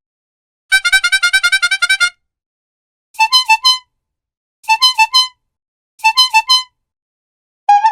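Clown bulb horn honking: a quick run of about ten short honks, then several bursts of about three honks each with short pauses between them.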